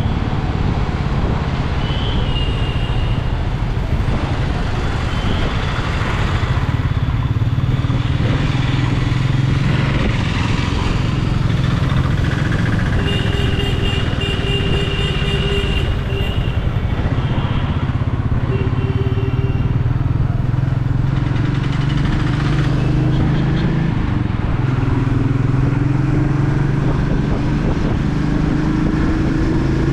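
Royal Enfield Meteor 350's single-cylinder engine and exhaust running at a steady cruise, the engine note rising gradually near the end. A few short, high beeping tones come partway through.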